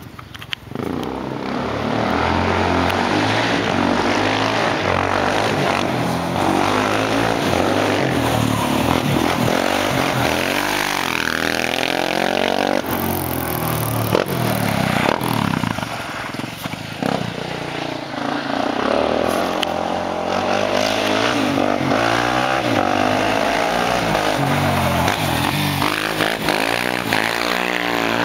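Suzuki 400 quad's single-cylinder engine running as it is ridden, its pitch rising and falling again and again with the throttle.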